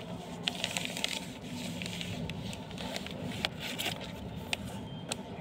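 Hands pressing and smoothing a freshly glued paper sheet flat, the paper crackling and scraping in short irregular clicks, over a low steady hum.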